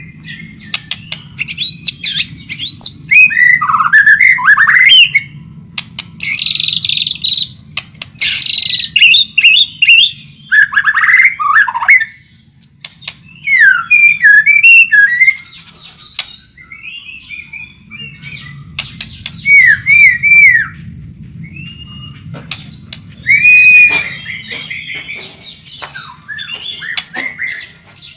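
White-rumped shama (murai batu) singing a loud, varied song in bursts of whistled phrases that sweep up and down, mixed with a few harsher notes and separated by short pauses.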